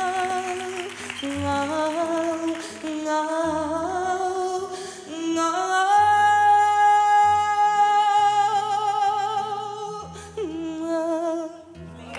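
A woman's flamenco-style voice sings the closing phrases of a Spanish-language ballad with heavy vibrato, rising about halfway through to one long held high note that lasts some four seconds, then a short final phrase, over instrumental accompaniment with low sustained bass notes.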